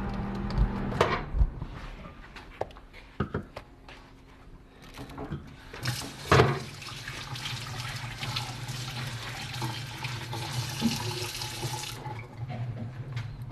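A water tap runs for about six seconds, coming on suddenly about six seconds in and shutting off near the end. Before it there are a few knocks and handling sounds, over a low steady hum.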